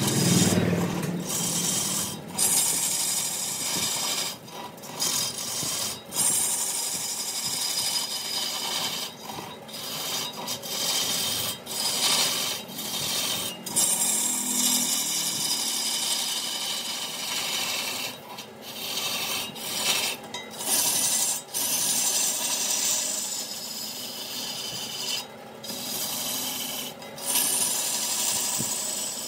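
A tool cutting into a piece of wood spinning on a lathe: a steady scraping hiss, broken every second or two by short gaps where the tool lifts off the wood.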